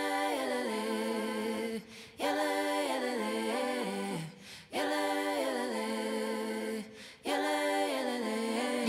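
Background music of unaccompanied voices singing a cappella in four long phrases, with brief pauses between them.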